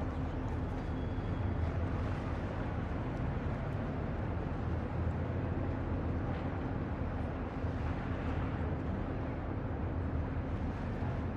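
Steady harbour ambience: a constant low engine hum under a wash of noise.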